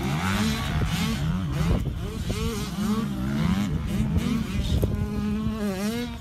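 Electric motor and gear whine of a radio-controlled rock crawler, its pitch rising and falling as the throttle is worked.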